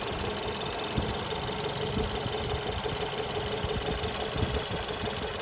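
2014 Ford Escape's engine idling steadily, with an even hum and a steady mid-pitched tone.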